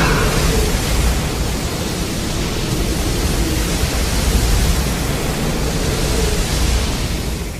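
A sound effect of a steady, loud rushing noise with a deep rumble underneath, starting to fade out near the end.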